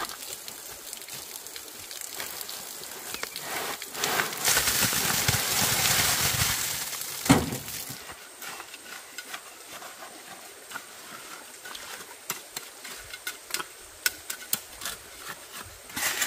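A few seconds of loud scraping or rushing noise ending in one sharp knock, then scattered light clicks and taps, like hard objects being handled and set down.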